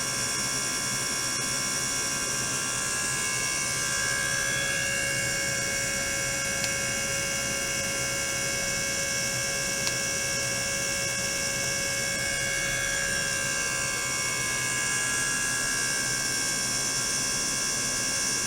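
Small circulation pump and ultrasonic water tank running: a steady whine of several high tones over a low hum, with two faint clicks midway.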